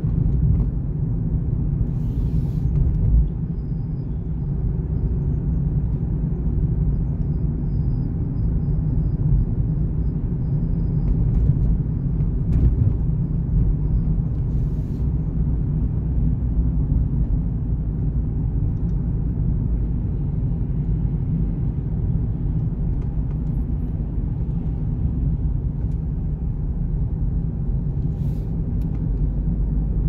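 A car driving at town speed: a steady low rumble of engine and tyres on the road, with a few faint short clicks.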